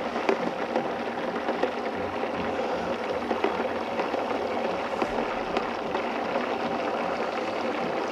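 Vitamix blender running steadily at low speed, churning bananas in water, with a steady motor tone under the churning and a few faint clicks, while the tamper is pushed down into the jar to break up the vortex.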